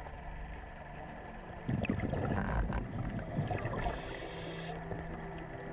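Scuba diver's breathing heard underwater: an irregular gurgle of exhaled regulator bubbles a couple of seconds in, then a short hiss, over a steady low hum.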